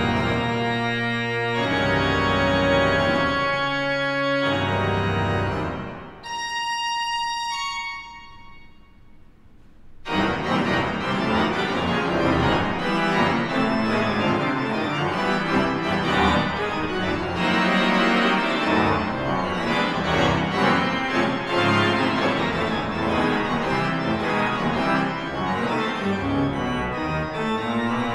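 Organ playing a loud, dissonant toccata of full-voiced chords in both hands. About six seconds in it thins to a few soft high notes, then about ten seconds in it resumes with dense, rapid chords across all registers.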